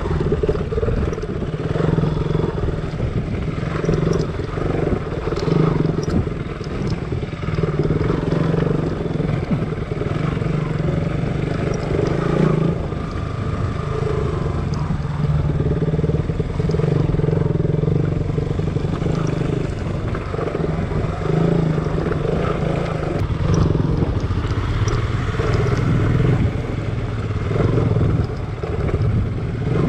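Motorcycle engine running as the bike is ridden, the throttle opening and easing off every second or two, with scattered small clicks and rattles.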